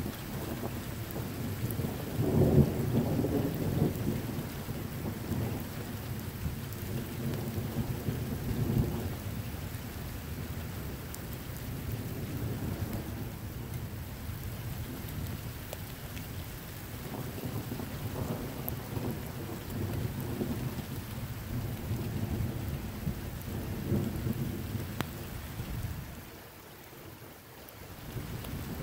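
Thunder rumbling in repeated long rolls over a steady hiss of rain. The loudest roll comes about two to four seconds in, and the rumble dies down briefly near the end.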